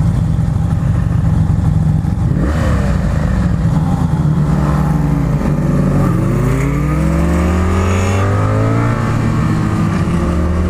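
Motorcycle engine running under way, with wind rush on the microphone. About halfway through, the engine note drops, then climbs steadily as the bike accelerates.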